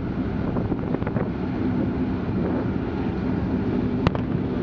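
A fireworks shell going off with one sharp bang about four seconds in, over a steady rumble of wind on the microphone and open-air background noise.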